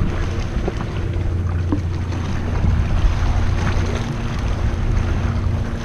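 Wind rumbling on the microphone over water splashing around an inflatable dinghy being rowed with oars, with a couple of light knocks about a second and two seconds in and a steady low hum underneath.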